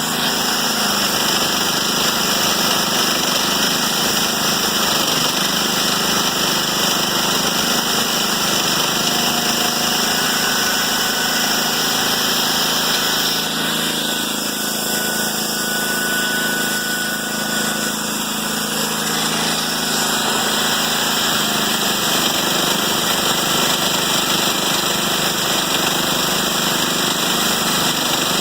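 Chainsaw on a chainsaw mill running steadily, a little quieter for a few seconds in the middle.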